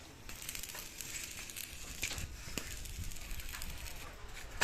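Electric arc welding: the arc's irregular crackle and sputter, a steady frying hiss dotted with sharp pops.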